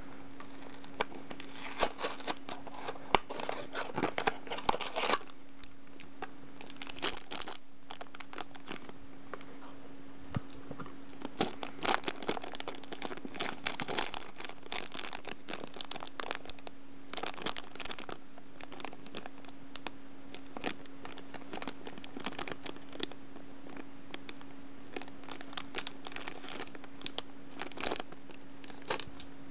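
Small cardboard blind box being opened by hand, then a clear plastic wrapper crinkled and torn open, in irregular bursts of crackling with short pauses. A faint steady hum runs underneath.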